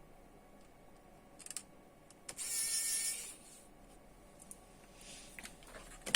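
Small metal parts being handled on the workbench: a couple of light clicks, then a brief rattle about two and a half seconds in, like small screws being picked through.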